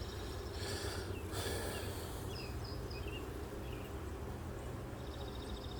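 Honeybees buzzing steadily around an opened hive as a frame is set back in.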